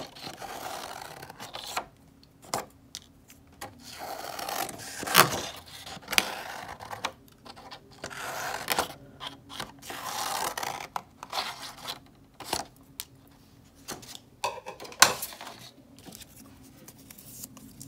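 Scissors cutting construction paper, with the sheet rustling as it is turned and handled. Short clicks run through it, two of them much sharper and louder, about five seconds in and again near fifteen seconds.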